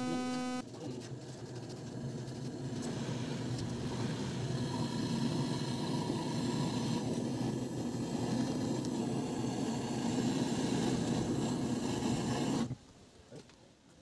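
Hand-held canister gas torch burning with a steady rushing hiss while heating a refrigerator's evaporator tubing to patch a punctured spot. It cuts off suddenly near the end, and a brief pitched tone is heard at the very start.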